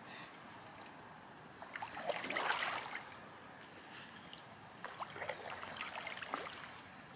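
Canoe paddling: a single-blade paddle dipping and pulling through calm lake water, with splashes and drips. The loudest strokes come about two seconds in, with lighter ones around five to six seconds.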